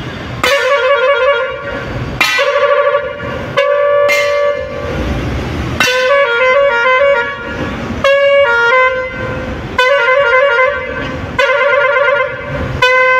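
Three-pipe Bosco 24-tone musical air horn, fed by its own compressor, playing a tune: loud phrases of short stepped notes, repeated about every two seconds.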